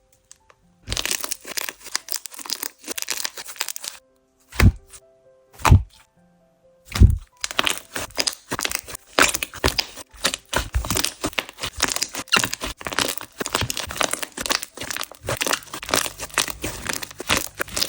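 Coated clear slime mixed with butter slime being squished and stretched by hand, giving dense fast crackling and popping clicks, with three separate soft low thumps in the middle.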